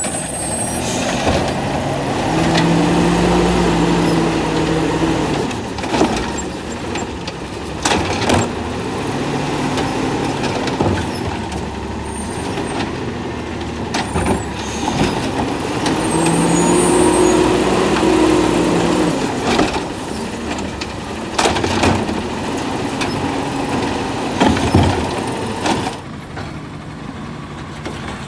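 Automated side-loader garbage truck working carts at the curb. Its engine revs up twice for about three seconds at a time to drive the lifting arm, and between the revs come sharp bangs and clanks of the plastic carts against the arm and hopper.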